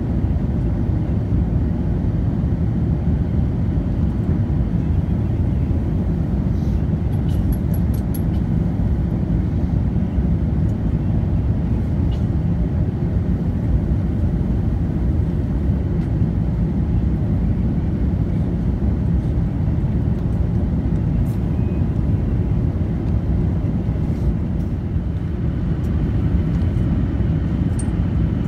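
Steady low rumble of an airliner cabin in flight, with a few faint brief ticks.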